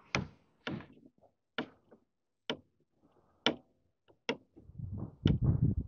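Lawnmower dead man's handle and its engine-stop cable clicking as the bail is pulled in and let go, about seven sharp clicks roughly a second apart. A low rumble comes in near the end.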